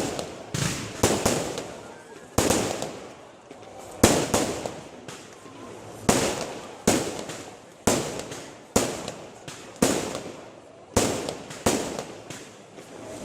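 Aerial fireworks shells bursting in quick succession: sharp bangs about once a second, sometimes two close together, each dying away in a short echoing tail.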